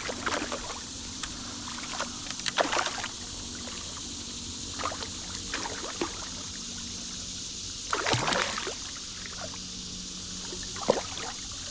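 Creek water running steadily, broken by irregular splashes at the surface, the loudest about eight seconds in: a hooked smallmouth bass thrashing as it is played in toward the angler.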